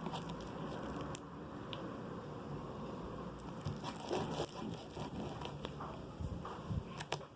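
Homemade slime, a glue mixture, being stirred and handled: soft sticky crackling with scattered small clicks.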